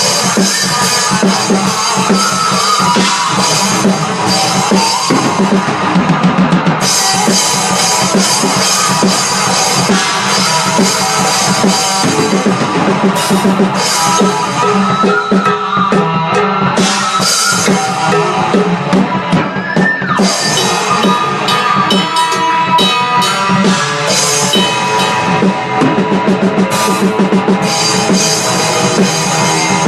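Rock music played loudly on a drum kit, with other steady pitched instruments sounding along and no break.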